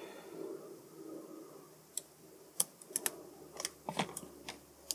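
Irregular small clicks and taps of a screwdriver and small parts being handled while wires are fitted into the screw terminals on a hair straightener's circuit board. They come sparsely at first and crowd together in the last three seconds.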